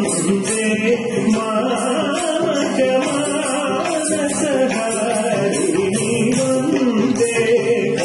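A song sung to instrumental accompaniment, with a steady beat of light percussion strokes.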